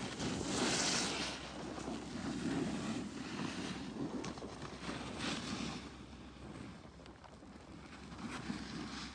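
Skis or a board sliding downhill on packed snow: an edge scrape and hiss that swells in several surges, strongest about half a second in, then again around two and a half seconds and five seconds in. Wind rushes over the microphone underneath it.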